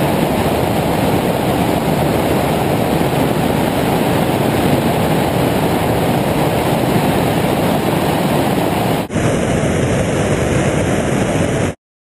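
Wind rushing over a camera carried on a light aircraft in flight: a loud, steady roar of airflow with no clear engine note. It breaks briefly about nine seconds in, then cuts off abruptly near the end.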